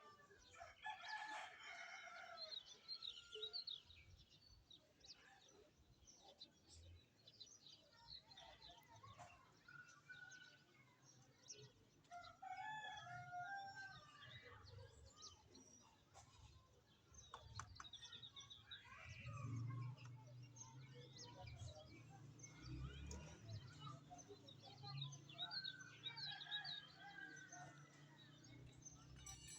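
Rooster crowing and chickens clucking among many small birds chirping, all faint. A low hum comes in about two-thirds of the way through.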